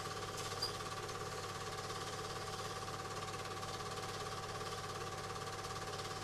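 Film projector running: a steady mechanical whir with a fast, even chatter and a constant hum, and a brief click about half a second in.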